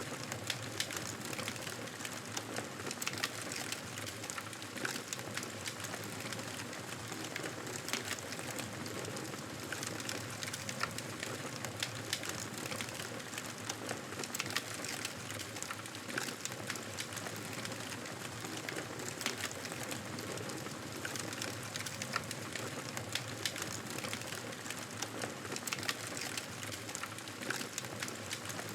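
Wood fire crackling in a fireplace: a steady hiss with frequent small, irregular pops and snaps.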